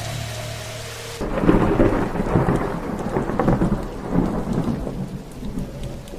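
Music with sustained tones cuts off abruptly about a second in, giving way to a loud thunderclap that rolls and slowly fades over steady rain.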